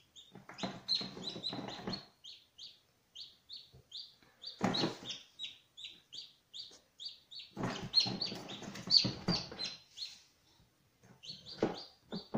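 Newly hatched Ayam Cemani chicks peeping over and over: short, high chirps that fall in pitch, about two to three a second. Several bursts of rustling noise come through between them.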